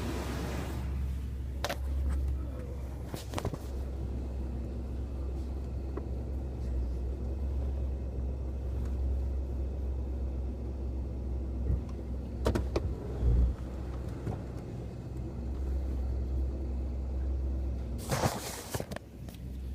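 2004 Toyota Tundra engine idling steadily after a cold start, with the clicking noise it makes when cold: a few sharp clicks stand out over the low idle. A short burst of noise comes near the end.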